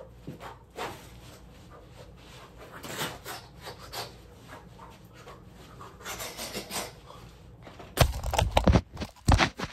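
A dog panting and moving about close by, with soft rustling. Near the end comes a short run of loud, close bumps and rubbing.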